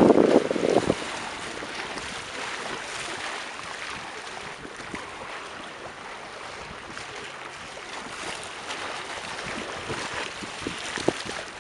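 Sea waves washing in, heard as a steady hiss. A gust of wind on the microphone fades out about a second in.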